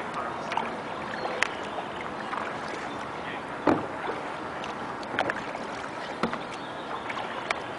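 Paddle strokes splashing and dipping in canal water as a small paddled boat moves along, with a few sharp splashes and knocks at irregular intervals over a steady wash of water and wind.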